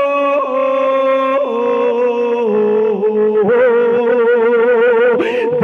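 A man singing a naat without words, holding long notes that step down in pitch, then wavering ornaments from a little past the middle.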